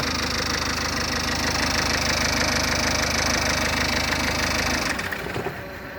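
Citroen C4's 1.6 HDi four-cylinder turbodiesel idling with an even ticking clatter, then switched off about five seconds in.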